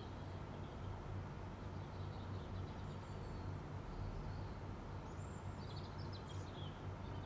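Quiet background: a low steady hum, with a few faint high bird chirps about five to six and a half seconds in.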